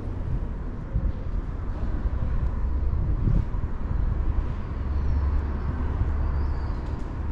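Low, steady outdoor rumble with a few faint clicks.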